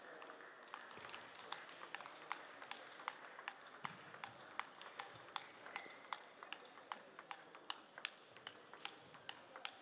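Table tennis rally: the ball clicking off bats and table in a quick, even rhythm of about two to three hits a second, starting about a second in.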